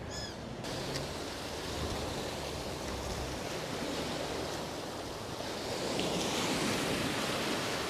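Sea waves breaking and washing up a sandy beach: a steady rush of surf that swells a little near the end.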